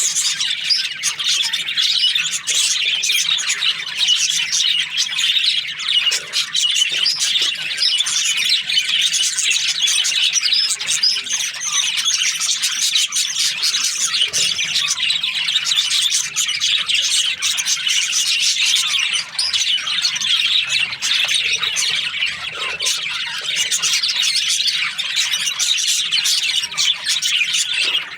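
A flock of budgerigars chirping and chattering without a break, many birds calling over one another.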